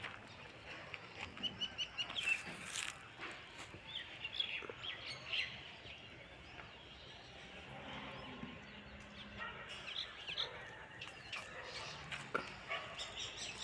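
Small birds chirping and twittering in a chorus: short, high calls scattered throughout, several overlapping at times.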